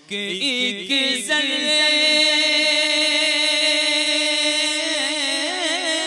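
A male naat reciter singing a Punjabi naat in a single unaccompanied voice. It opens with quick ornamented runs, settles about a second in on one long held note, and breaks into wavering ornaments near the end.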